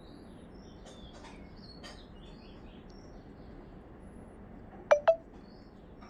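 Small birds chirping faintly in short high calls over a light background hiss. About five seconds in, two sharp clicks sound in quick succession, much louder than the birds.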